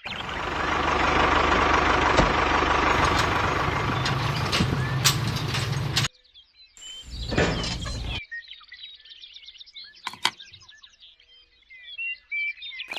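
A small motor-driven machine running with a dense rattling noise for about six seconds, cutting off abruptly, then running again briefly a second later. Birds chirp faintly in the background.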